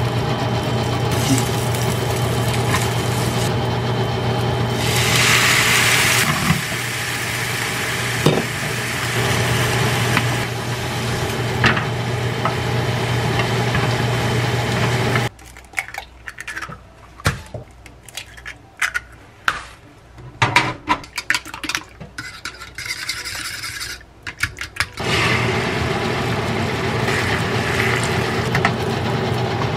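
Stir-frying fish cake strips in a square nonstick pan: wooden chopsticks click and scrape against the pan over a steady hum, with a burst of hiss about five seconds in. From about halfway the hum drops out for some ten seconds, leaving only sharp clicks and knocks on the pan, then comes back near the end.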